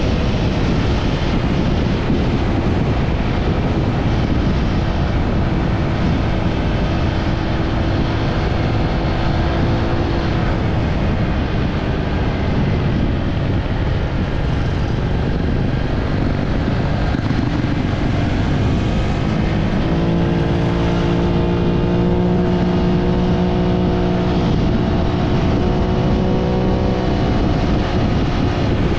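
Honda Click V3 scooter's single-cylinder engine running at road speed under a heavy rush of wind on the microphone. The engine note turns clearer and steady about two-thirds of the way through.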